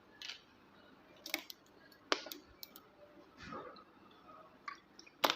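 Irregular light clicks and taps, about a dozen scattered at uneven intervals, the loudest a sharp click near the end.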